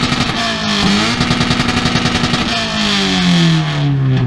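A car engine revved hard through a loud exhaust. The revs dip briefly, climb again and are held high with a rapid pulsing for about a second and a half, then fall away in a long drop near the end.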